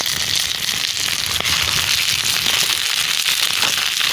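Wood campfire crackling: a steady, dense stream of small pops and snaps from the burning branches.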